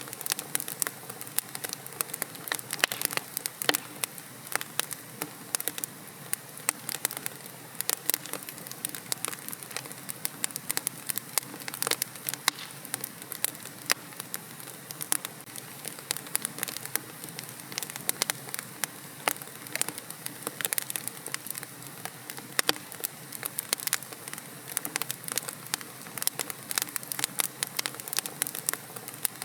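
Wood fire burning in a fireplace, with a steady low hiss and many irregular sharp crackles and pops.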